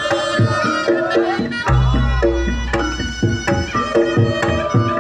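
Live Reog Ponorogo gamelan music: a slompret shawm holds a wavering melody over quick, repeated kendang drum strokes and pitched gong-chime beats. A deep low gong hum comes in just before two seconds in and drops out near the end.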